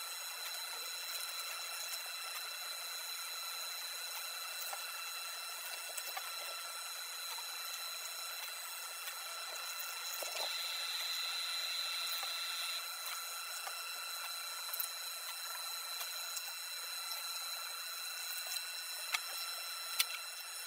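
Epson inkjet printer running steadily with a thin high whine, its sound changing briefly about ten seconds in. A few light clicks of paper being handled come near the end.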